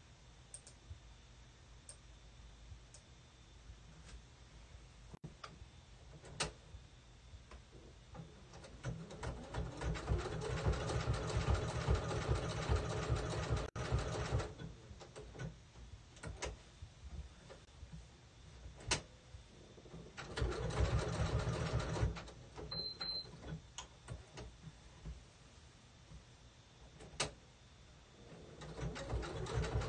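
Sewing machine stitching an appliqué letter, running in three spells of a few seconds each with pauses between them.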